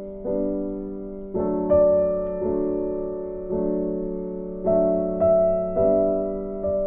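Background piano music: slow chords, each struck about once a second and left to fade.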